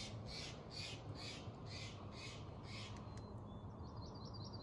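A bird giving a quick series of about eight harsh, raspy calls, followed near the end by a short rapid trill of high chirps, over a steady low rumble.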